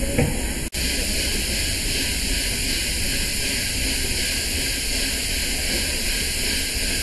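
Steady hiss of steam from a standing steam locomotive, the LNER A4 Pacific 60019 Bittern, with a low rumble underneath; the sound drops out for an instant about a second in at an edit.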